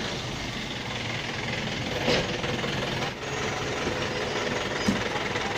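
School bus engine idling steadily at the kerb, with a few short knocks as children climb the bus steps.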